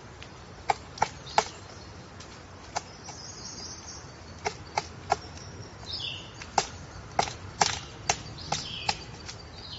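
Woodpecker pecking at wood: about a dozen sharp, separate knocks at an uneven pace, each with a short hollow ring. Faint higher bird calls come between the knocks.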